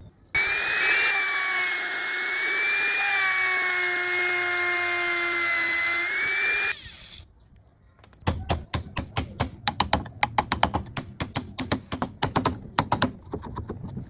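A handheld power tool's electric motor runs at a steady high whine for about six seconds, then cuts off. After a short pause comes a fast, irregular run of sharp knocks or taps lasting about five seconds.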